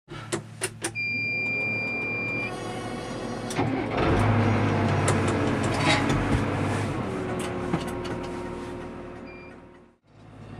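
New Holland M100 tractor engine running, with a few sharp clicks and a steady high beep in the first couple of seconds; the engine grows louder about four seconds in, then fades out near the end.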